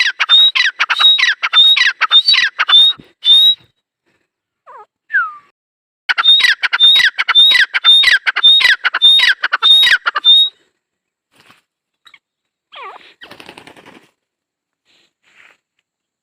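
Grey francolin (dakhni teetar) calling: two loud runs of rapid, repeated sharp whistled notes, about three a second, the first run stopping after a few seconds and the second starting about halfway through. Fainter calls follow near the end.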